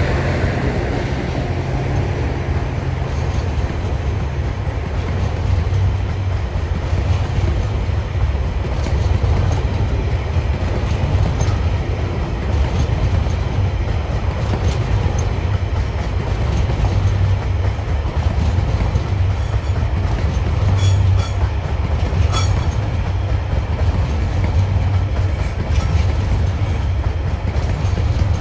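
Loaded container wagons of a heavy diesel-hauled freight train rolling past at steady speed: a continuous low rumble with wheels clacking over the rail joints, while the locomotives' engine sound fades away in the first second. A few sharp wheel clicks and short squeaks come about two-thirds of the way through.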